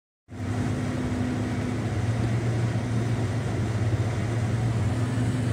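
Steady in-car noise of a car being driven: a constant low engine and road drone under a hiss of noise. It starts abruptly a moment in.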